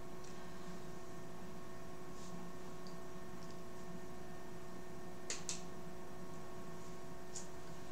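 Steady electrical hum with several faint steady tones, broken by two faint clicks about five seconds in.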